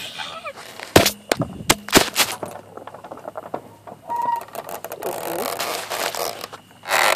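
Handling noise on a phone's microphone: a quick cluster of sharp knocks and clicks about a second in, then rustling that grows louder toward the end.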